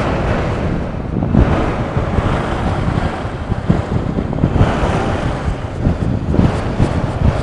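Wind buffeting the camera's microphone: a loud, uneven low rumble that swells and drops in gusts.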